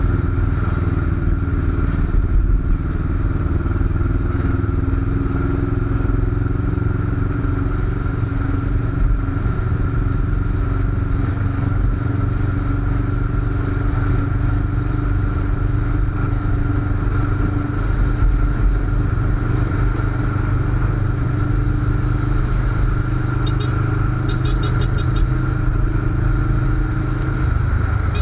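Suzuki GS500's air-cooled parallel-twin engine running steadily at a cruise, its pitch drifting only slightly, over the hiss of wind and tyres on a wet road.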